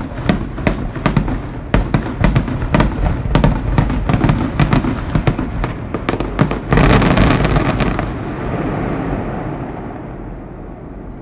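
Fireworks finale: a rapid string of shell bursts cracking and booming, building to a dense barrage about seven seconds in, then a rumble that dies away.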